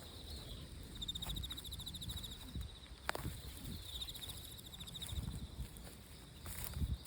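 Insects trilling in two fast pulsed bursts, over a low rumble, with one sharp tap about three seconds in.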